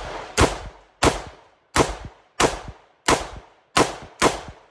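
SIG SPEAR LT rifle in 7.62x39 firing ball rounds: seven sharp shots in steady succession, about two-thirds of a second apart, each trailing off in an echo.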